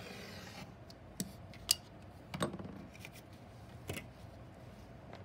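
Rotary cutter slicing along the edge of an acrylic ruler through the fabric seam allowance on a cutting mat, a short rasp at the very start. Then a few sharp light clicks and taps follow as the ruler and paper block are handled.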